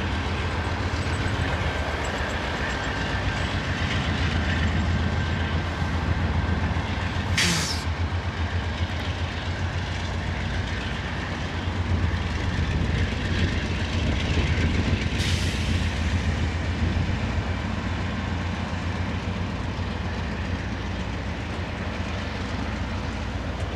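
Union Pacific diesel locomotives, one a GE AC4400, working as rear distributed power on a loaded coal train, running with a steady low drone as they pass, then loaded coal hoppers rolling by on the rails. Two brief high-pitched squeals cut through, about seven and fifteen seconds in.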